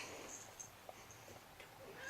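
Faint jingling of a bell inside a cat's toy ball, a few soft short jingles after a light knock at the start.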